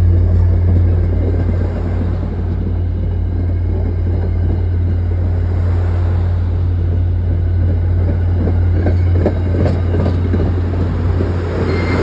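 MBTA Commuter Rail train's bilevel coaches rolling past on the track, over a steady low drone, with a cluster of wheel clacks about nine to ten seconds in.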